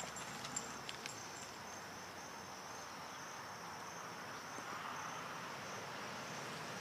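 Steady, high-pitched insect chorus, a thin unbroken trill, with a few light clicks in the first second and a half.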